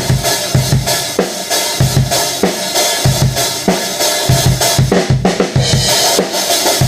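Metal drum kit played in a steady groove: regular kick drum and snare hits under a constant wash of cymbals.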